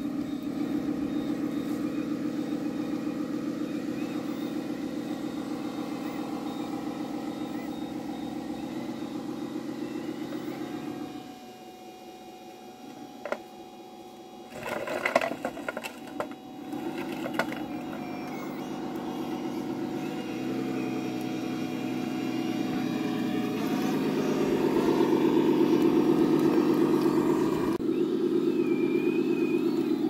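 RC Volvo articulated dump truck running, a steady pitched hum from its drive. About eleven seconds in it falls quiet for a few seconds, then comes a short clatter of clicks and rattles as the bed tips and the stones slide out. The hum comes back and swells near the end.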